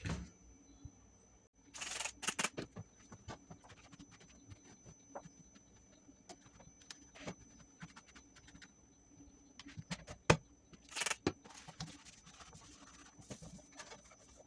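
A cloth wiping and rubbing the exterior and glass door of an air fryer oven: irregular scratchy strokes, with denser spells of rubbing about two seconds in and again near eleven seconds. A sharp knock a little after ten seconds in is the loudest sound.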